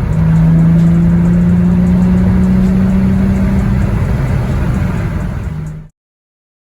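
Infiniti G35's 3.5-litre V6 engine running at steady revs with a constant drone, then cutting off suddenly about six seconds in.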